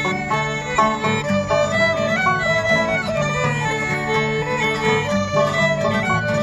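Live Irish traditional session music: fiddles and guitar playing a tune together with other instruments, at a lively steady pace.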